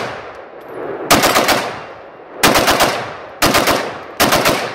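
Norinco AK-47 in 7.62x39 bump-fired with a Slidefire stock: four short rapid bursts of shots, each lasting under a second, with echo dying away between bursts.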